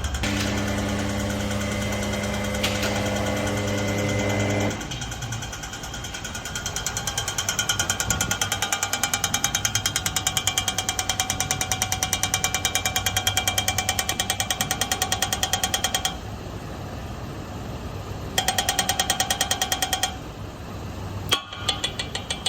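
Car engine running with a loud, rapid, rhythmic knocking, several knocks a second. The knocking comes and goes in stretches, and the first few seconds hold a steady engine hum without it.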